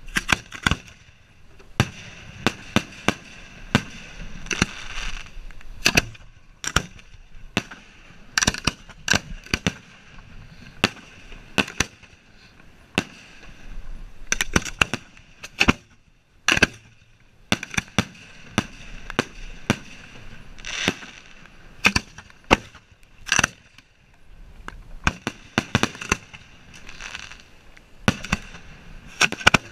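Fireworks display at the firing line: aerial shells launching from hand-lit mortar racks and bursting. They make an irregular series of sharp bangs, sometimes several in a second and sometimes a second or two apart, with a hiss between them.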